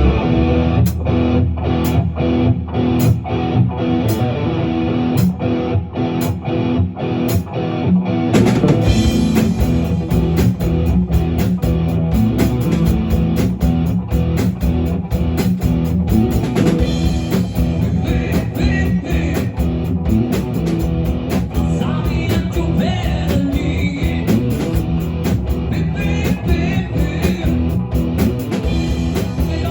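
Rock music with electric guitar and drum kit. A sparse intro with a regular beat of about one and a half strokes a second gives way to the full band about eight seconds in.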